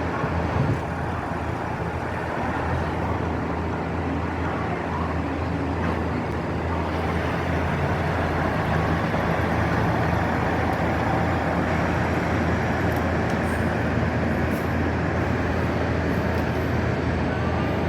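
Steady drone of a KiHa 85 series diesel railcar: a low hum under an even rushing noise, growing a little louder about halfway through.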